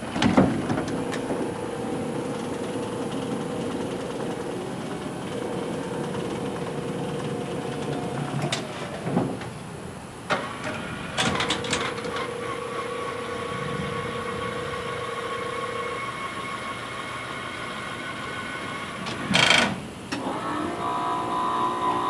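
A van's remote-controlled wheelchair lift and side doors working: an electric motor runs with a steady hum, stopping and restarting, while the doors swing open and the platform unfolds and lowers. Sharp clicks and clunks come at the start, around the middle, and once near the end as parts latch and shift.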